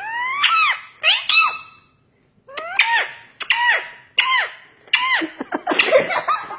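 Pet parrot giving a run of short squeaky calls, each rising then falling in pitch, with a pause of about a second between the first two and the rest.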